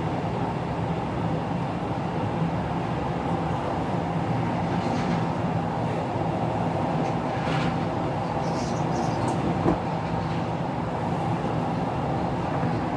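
A steady low mechanical hum, with a few faint light clinks and a soft knock about ten seconds in.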